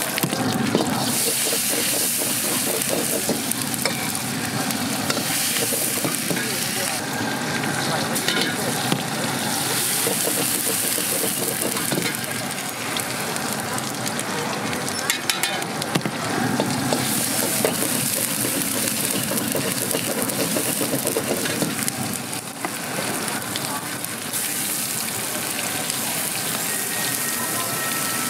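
Food sizzling and frying in a wok over a gas burner as it is stirred with a steel ladle. A steady hiss that swells and eases, with a few sharp clinks of metal on the wok.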